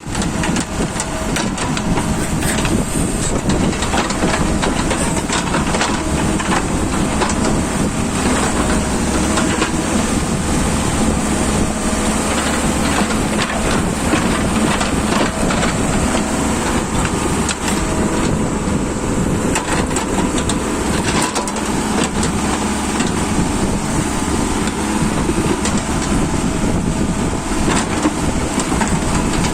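Backhoe loader's diesel engine running steadily under load while digging, with scattered metallic clanks and knocks throughout.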